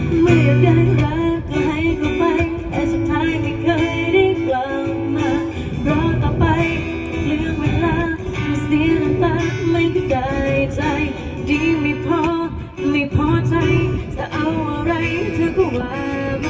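Live band playing an instrumental passage of a pop song: guitar and bass under a wavering lead melody.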